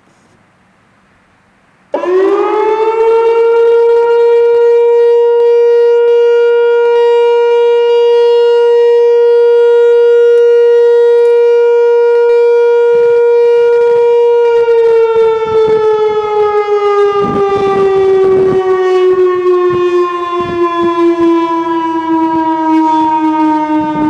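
Whelen WPS-2740 electronic outdoor warning siren sounding its steady alert tone. It starts abruptly about two seconds in and sweeps quickly up to pitch, holds one steady tone for about twelve seconds, then slowly falls in pitch as the tone winds down.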